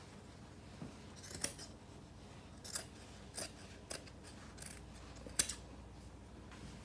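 Large fabric scissors snipping through denim, trimming off excess fabric in a series of about seven short, irregularly spaced cuts, the sharpest about five seconds in.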